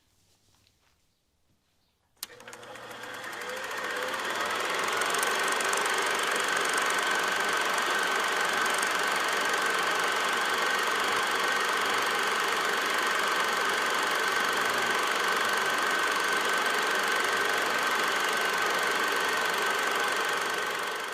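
A motor-driven machine switched on with a click, building up over about two seconds, then running steadily with a high whine until it cuts off abruptly at the end.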